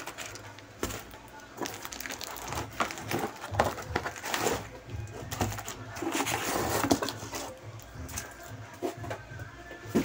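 Cardboard box flaps and a cling-wrapped, cardboard-padded package being handled: rustling and crinkling of cardboard and plastic wrap with scattered light knocks, busiest around the middle.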